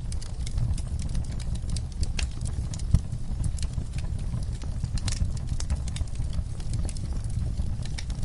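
Wood fire burning in a fireplace: a steady low rumble from the flames with irregular crackles and pops throughout, and one sharper pop about three seconds in.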